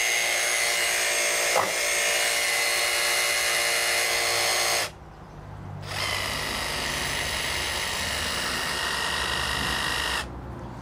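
Makita JV001G 40V XGT brushless barrel-grip jigsaw running free with no cut, a steady motor whine with a small knock early on. It stops a little before halfway, starts again about a second later a little quieter, and stops near the end.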